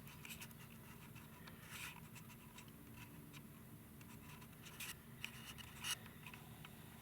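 Quiet room tone with a few faint, brief scratches or clicks spread through it.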